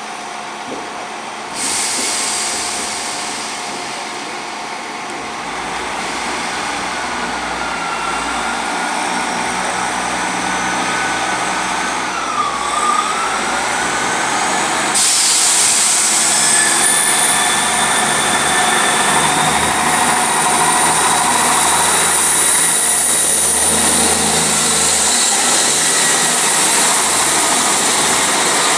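Class 158 diesel multiple unit coming into the platform and pulling away. Its diesel engines and wheels on the rails grow steadily louder, with thin squealing tones over the top. The sound steps up suddenly about halfway through.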